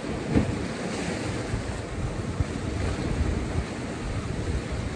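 Choppy sea washing against shoreline rocks, with wind buffeting the microphone.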